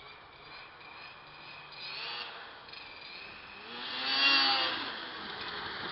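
1990 Arctic Cat Prowler 440 liquid-cooled two-stroke snowmobile with a pipe, revving hard as it accelerates across the snow. The engine rises briefly about two seconds in, then climbs to its loudest about four seconds in before easing back.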